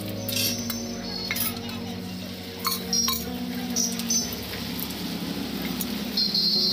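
Metal spatula clinking and scraping on a flat metal street-food griddle as bread-omelette sandwiches are flipped and pressed. There are several sharp clinks in the first four seconds and a longer scrape near the end.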